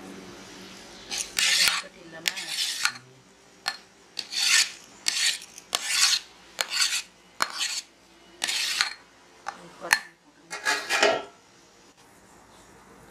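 Perforated steel ladle scraping and stirring through cooked rice in a large aluminium pot. About a dozen rasping strokes come in an uneven rhythm, with a sharp metal clink about ten seconds in, and the stirring stops about eleven seconds in.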